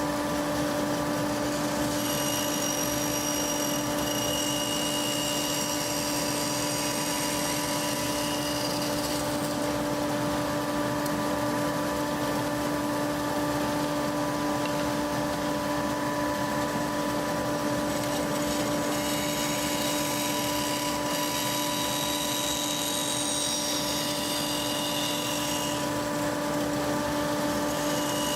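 Bandsaw running with a steady hum. Twice, for several seconds each time, a higher whine rises over it as the blade cuts through a wooden workpiece.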